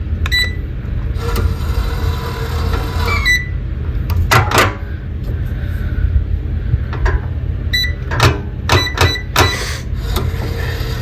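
SafeMark electronic hotel-room safe being locked and reopened. Its keypad beeps as keys are pressed, its motor whirs for about two seconds as the bolts move, and there are a couple of sharp knocks. Near the end comes a quick run of beeps and a second whir as it unlocks.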